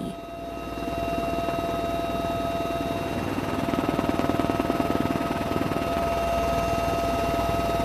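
Steady aircraft engine noise with a high whine and a fast pulsing drone, swelling slightly about halfway through.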